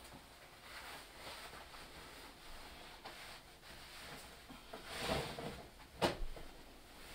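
Rustling of clothing as a pair of jeans is pulled down and off, with a louder swish about five seconds in and a single sharp knock just after six seconds.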